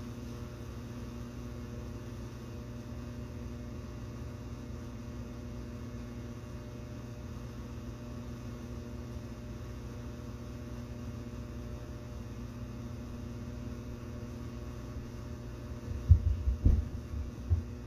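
Steady low electrical hum with a faint background drone. A few dull low thumps come near the end.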